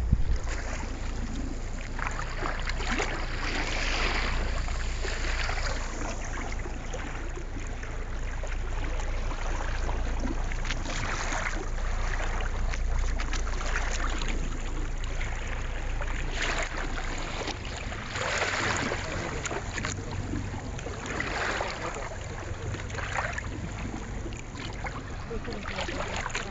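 Water rushing and splashing along the hull of a moving boat, surging every few seconds over a steady low rumble and wind.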